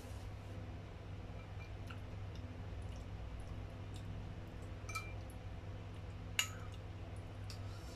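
Metal spoon clinking against a porcelain bowl while eating, with small clicks and soft eating sounds; the loudest clink, with a brief ringing tone, comes about six and a half seconds in, a smaller one about five seconds in. A steady low hum sits underneath.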